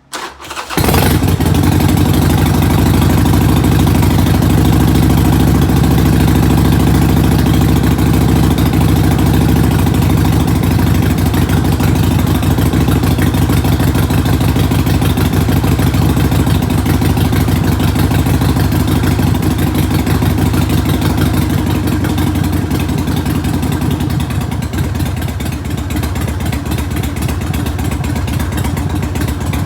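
A 1999 Harley-Davidson Sportster's air-cooled V-twin is cold-started. It catches within the first second and then runs steadily, its sound easing a little lower about 24 seconds in.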